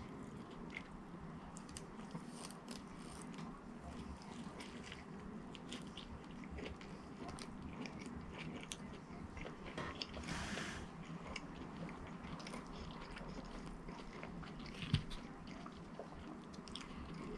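Close-miked chewing and biting of fast food, with soft crunches and small wet mouth clicks. A brief rustle comes about ten seconds in and a single knock near fifteen seconds.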